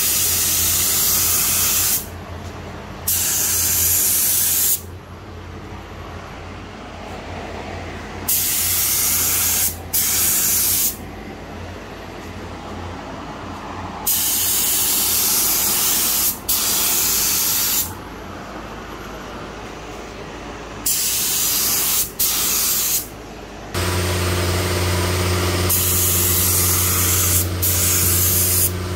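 Gravity-feed air spray gun hissing in repeated bursts of one to five seconds as the trigger is pulled and released, spraying black basecoat at 26 psi, with a fainter steady hiss between bursts. Near the end a steady low motor hum comes up underneath.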